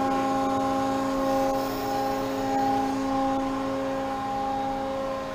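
Hydraulic power unit of a Clarke & Lewis CL-200 CNC tube bender running, its electric motor and pump giving a steady, even whine that holds one pitch throughout.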